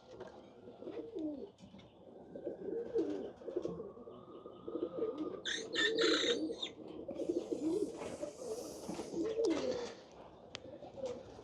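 Several pigeons cooing in overlapping, repeated low coos. About five and a half seconds in comes a short, louder rustling burst.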